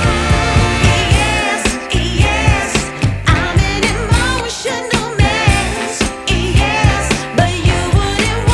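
Background music: a song with a sung vocal melody over a steady beat and bass.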